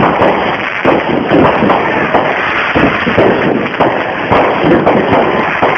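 Consumer fireworks finale: a dense barrage of overlapping bangs and crackling shots with no break between them.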